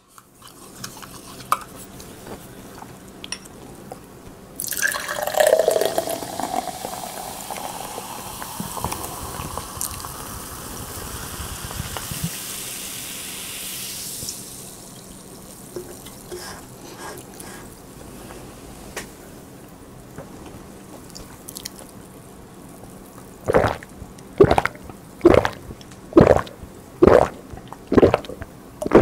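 Sparkling peach soda poured from a can into a glass beer mug: a splashing pour whose tone rises as the mug fills, with the carbonation fizzing on for several seconds after. Near the end, a run of about six gulps, roughly one a second, as the soda is drunk from the mug.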